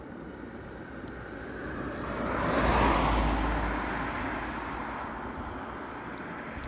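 A white van overtakes at road speed, its engine and tyre noise swelling to a peak about three seconds in and then fading as it pulls away ahead.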